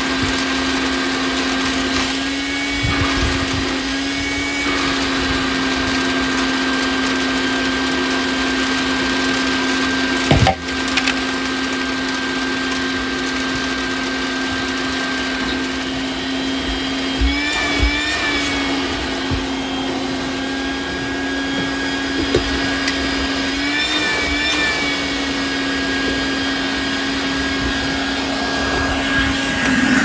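Vacuum cleaner running steadily with a constant motor hum, its pitch wavering briefly a few times as the suction load changes. A single sharp click comes about ten seconds in.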